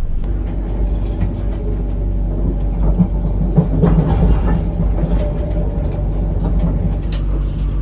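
Passenger train running, a steady rumble with a low hum.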